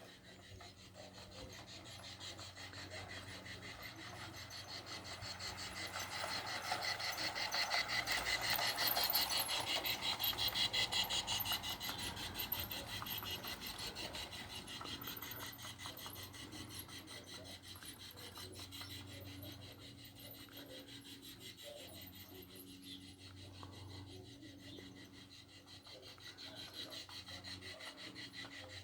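A small train passing by, its running making a fast, even rhythm that grows louder to a peak about a third of the way through and then fades away.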